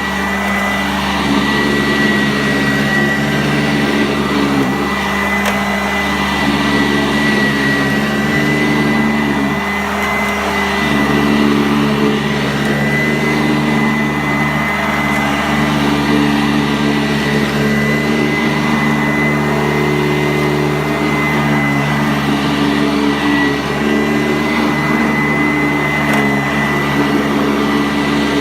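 Sanitaire SC684 upright vacuum cleaner running steadily while pre-vacuuming carpet: a steady motor hum with a thin high whine.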